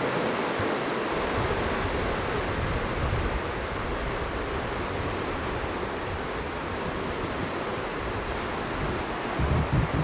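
Sea surf washing on the shore, a steady rushing with no separate breakers standing out. A few low bumps come near the end.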